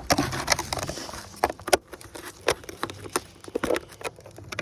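Irregular clicks and knocks of hands handling small gear, a few sharp ones among softer rustling and tapping.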